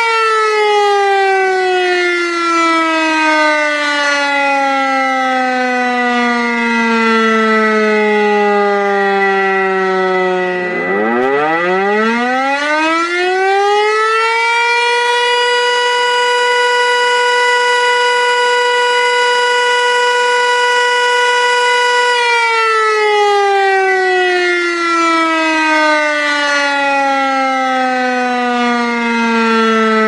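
Loud civil-defense siren wailing: its pitch sinks slowly for about ten seconds, sweeps quickly back up, holds steady for about seven seconds, then starts sinking again. A steady high tone sounds alongside it the whole time.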